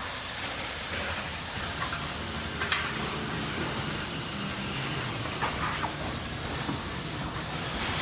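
Factory machinery running: a steady hiss over a low hum, with a few sharp metallic clicks, one near the start and a couple more past the middle.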